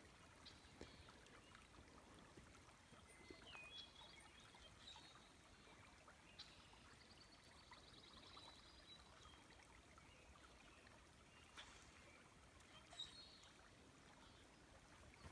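Near silence: faint river flow, with a few faint, distant bird calls, one of them a short rapid trill about halfway through.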